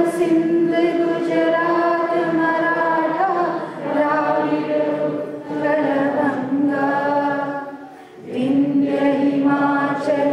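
A crowd singing the national anthem together without instruments, led by a woman's voice through a microphone. The notes are long and held, with short breaks about three and a half seconds in and near eight seconds.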